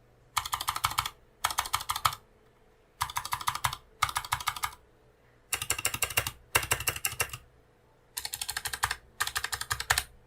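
Stock RK61 mechanical keyboard with its original clicky blue switches, its stabilized keys pressed over and over in quick runs to check the stabilizers. There are about seven runs of fast clicking, each lasting under a second, with short pauses between them.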